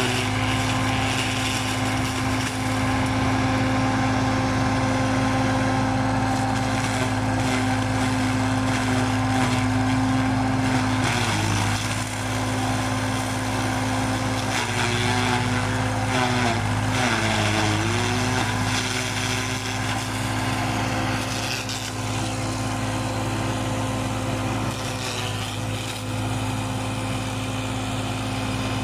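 Tractor engine driving a small tractor-mounted feed grinder, running steadily while dry corn stalks are fed in and chopped. The pitch sags briefly twice, about a third and two-thirds of the way through, as the load comes on.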